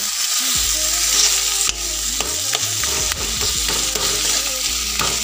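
A steel ladle stirring and scraping wax gourd and fish-head curry in an iron wok, with scattered scrapes over a steady frying sizzle.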